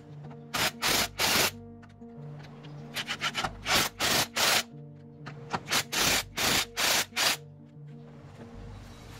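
Cordless impact wrench hammering in short bursts, several in quick succession in three groups, as it runs a car wheel's lug nuts tight; it stops after about seven and a half seconds. Background music plays under it.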